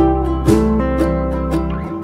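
Background music on acoustic guitar: plucked notes over a held low note that fades near the end.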